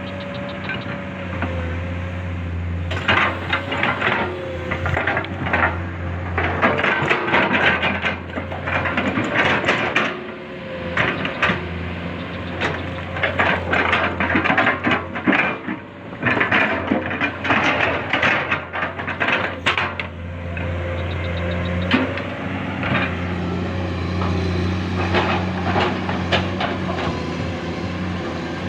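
Excavator's diesel engine running steadily, with a long run of clattering knocks and scrapes from the bucket at work; near the end the knocking stops and the engine runs on alone.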